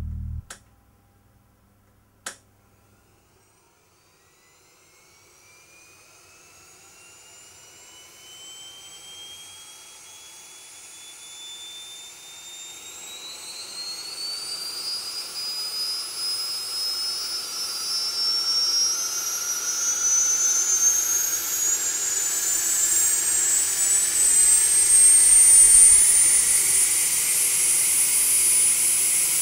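Two sharp clicks, then a Price Induction DGEN turbofan starting up under FADEC-controlled ignition. A faint whine rises steadily in pitch and grows louder as both spools accelerate, then levels off near the end into a high, steady whine.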